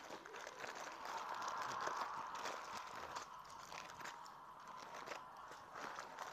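Medicine boxes and packets being handled: rustling and crinkling with many small clicks and taps.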